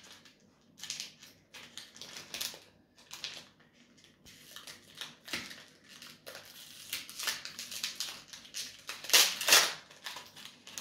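Foil Pokémon booster pack wrapper crinkling and tearing as it is opened by hand, in a string of short irregular crackles, the loudest about nine seconds in.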